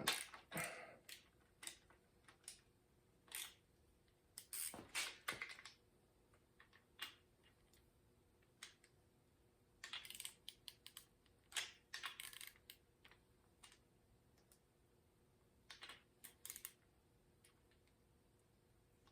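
Scattered light clicks, taps and short scrapes of hand tools working on a pushrod engine's valve train during a valve adjustment, in uneven bursts with quiet gaps between.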